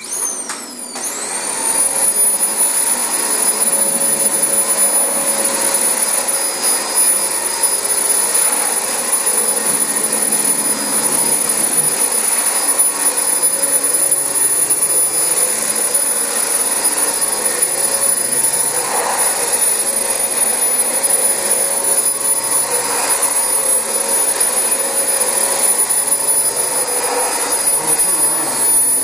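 Dyson DC25 upright vacuum cleaner switched on: its motor whine rises as it spins up over the first second or two, then it runs steadily at full speed with a high whine over a loud rush of suction while vacuuming carpet.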